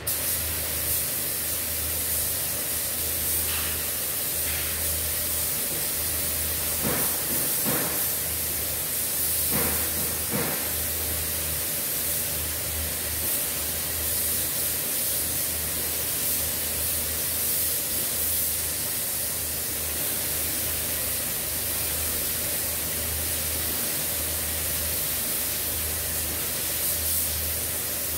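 Gravity-feed paint spray gun hissing steadily as compressed air atomises paint onto a car bumper, with a low hum underneath.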